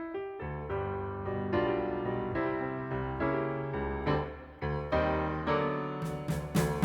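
Instrumental music: a piano melody over chords, with drum hits coming in near the end.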